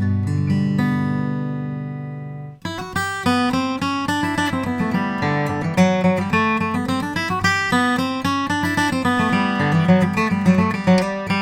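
Gibson J-35 acoustic guitar with a Sitka spruce top and mahogany back being played: a chord rings and fades, then cuts off abruptly about two and a half seconds in. A busy passage of picked notes and chords follows.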